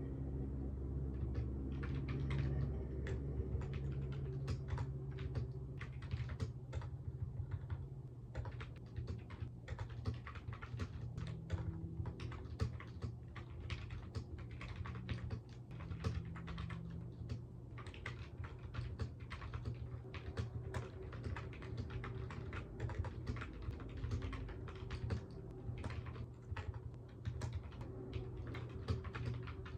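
Typing on a computer keyboard: a quick, irregular run of key clicks with brief pauses between bursts, over a low steady hum.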